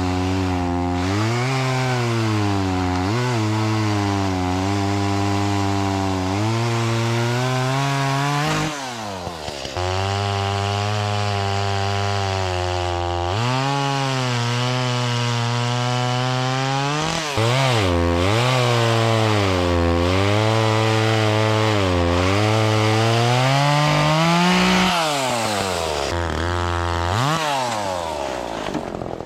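Two-stroke chainsaw cutting wood, its engine note sagging as the chain bites and climbing again between cuts. It drops off-throttle briefly about nine seconds in, again near seventeen seconds, and toward the end.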